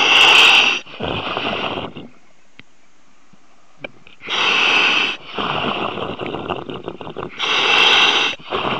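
Diver breathing through a surface-supplied diving mask's demand valve, picked up by the comms microphone: three loud hissing breaths, each followed by a rougher rushing exhale, with a pause of about two seconds after the first.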